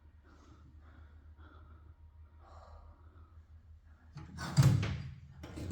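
A person breathing faintly, then a loud sigh about four seconds in, and a second, shorter one near the end.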